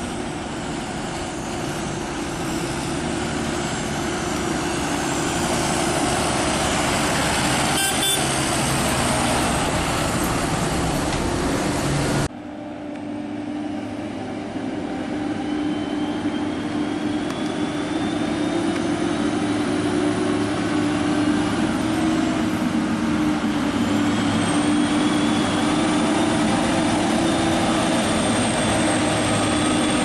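Claas Lexion combine harvester running steadily. The sound breaks off abruptly about twelve seconds in, then the combine is heard again, with thin high whines that slowly rise in pitch over the engine noise.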